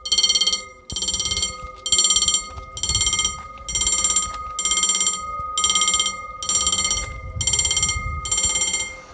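Old EFACEC mechanical level-crossing bell ringing in repeated bursts about once a second, each burst a fast trill of strikes. It is the crossing's warning that a train is approaching.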